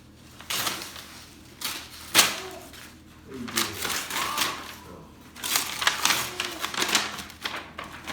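Gift wrapping paper being torn and rustled off a present in several rough bursts, with a faint voice now and then.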